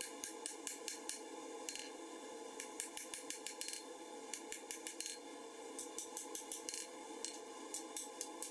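Hand hammer striking a red-hot 1070 steel sword blade on an anvil: sharp metallic clinks in quick runs of blows, about three to four a second, with brief pauses between runs.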